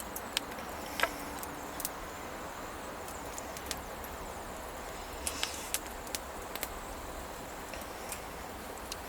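Wood campfire crackling: irregular sharp pops and snaps over a steady low hiss, with a small cluster of pops about five seconds in.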